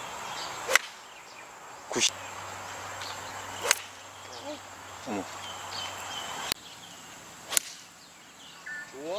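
Golf clubs striking balls: four sharp cracks, each with a brief swish, spaced irregularly a second or more apart.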